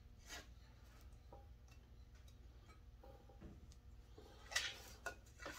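Quiet hand work on small plastic chainsaw parts: a few faint clicks as a fuel-line grommet and fittings are handled in the handle housing, over a low steady hum. A short louder rustle comes about four and a half seconds in.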